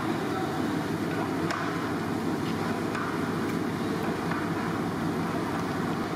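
Light metal clicks of iron skewers knocking against each other and the steel pans as marinated chicken is threaded on, a few scattered taps over a steady kitchen din with faint voices.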